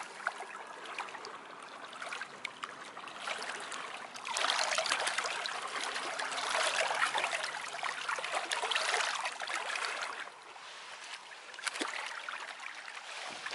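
Small lake waves lapping and splashing against shoreline rocks, louder in swells through the middle and softer near the end.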